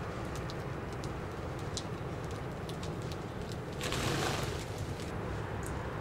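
Faint short chirps and ticks from house sparrows at the crumbs, over a steady low traffic rumble. About four seconds in, a rushing noise about a second long rises briefly above it.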